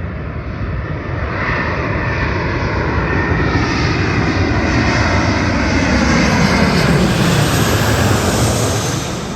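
Ryanair Boeing 737-800's CFM56 jet engines as the airliner passes close by: a loud jet noise that builds for several seconds, peaks about three quarters of the way through, then fades, its pitch sliding downward as it goes past.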